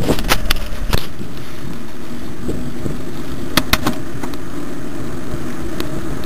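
Wind buffeting the microphone of a bike-mounted camera, over the steady rumble of mountain-bike tyres rolling on asphalt. A few sharp clicks and knocks from the camera mount jolting come in the first second and again about three and a half seconds in.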